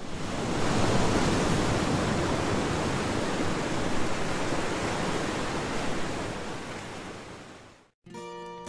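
Steady rush of ocean surf, fading out over the last couple of seconds. After a brief silence, acoustic guitar music begins near the end.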